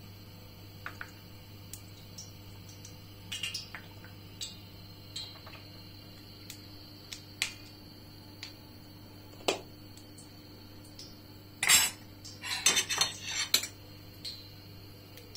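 Kitchenware clinking: scattered single knocks of utensils and dishes, then a quick run of louder clatter about twelve seconds in, over a faint steady hum.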